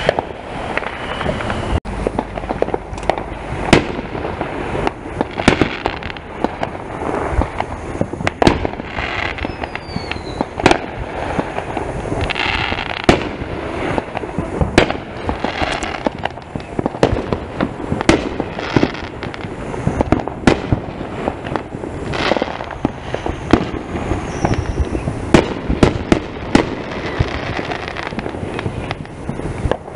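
Fireworks going off: many sharp bangs and pops at irregular intervals, with a short falling whistle about ten seconds in.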